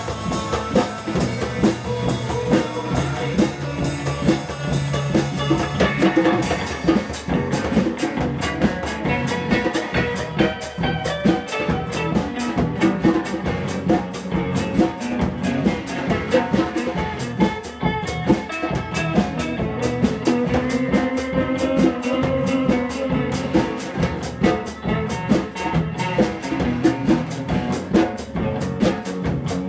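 A band jamming: a drum kit keeps a steady beat under guitar.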